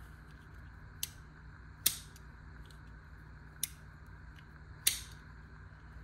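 Folding pocket knife being snapped open and shut: four sharp metallic clicks of the blade slamming into its lock, spaced irregularly, the second and fourth the loudest. The knife needs a hard snap each time to lock.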